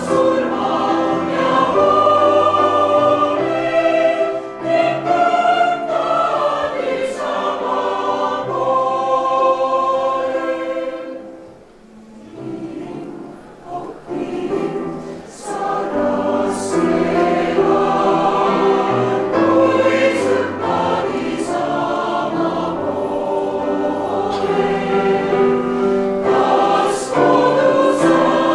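Mixed choir singing. The sound thins to a soft passage about eleven seconds in, then comes back at full strength.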